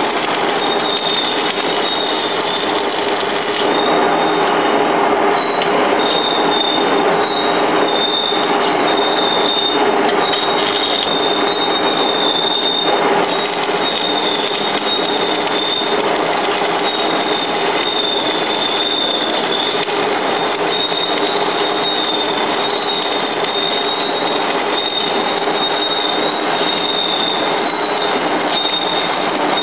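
Electric arc welding, a steady loud crackling hiss with a thin high whine over it that runs on without a break. The welding is part of the repair of a charcoal briquette machine's screw propeller.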